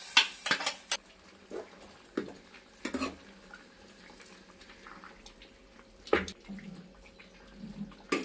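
Kitchen utensils clinking and knocking against metal pots and dishes: a quick run of clinks in the first second, then a few scattered knocks.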